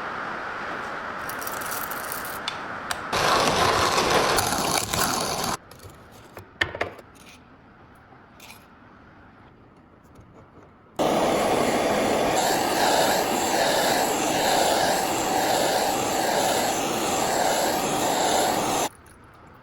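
Rubbing and scraping from work on an antique coffee grinder's metal parts. A few seconds of it come at the start, then a longer, louder, steady stretch with an even, cyclic rhythm begins about eleven seconds in and stops shortly before the end.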